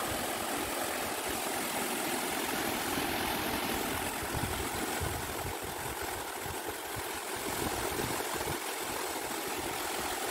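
Steady rushing noise of flowing stream water, even and unbroken.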